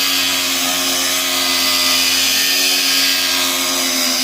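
Power cut wheel fitted with a metal blade running steadily while it cuts a wooden floor board along a marked line, a loud, steady whine with a hissing rasp.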